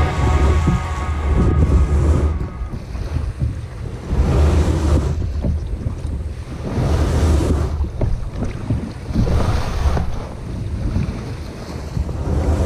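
Wind buffeting the microphone with a heavy low rumble, while water rushes and slaps against the hull of a Hobie Mirage Adventure Island under way. The water sound swells and fades every two to three seconds.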